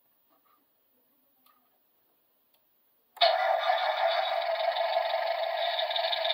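Electronic engine sound from the Fiat 125p scale model's built-in sound unit, played through its small speaker: after near silence with a few faint clicks, it cuts in suddenly about three seconds in and runs steadily like an idling engine, with no deep bass.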